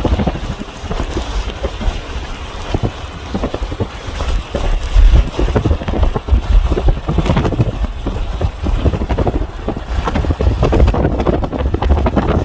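Strong gusty wind buffeting the phone's microphone: a heavy, low, blustering noise that swells and eases in gusts.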